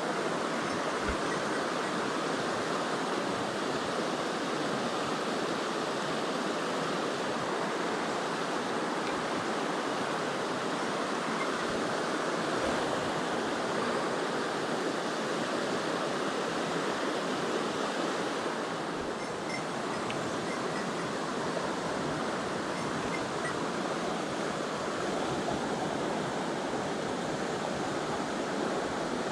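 Mountain stream water rushing steadily over rocks, an even, unbroken rush.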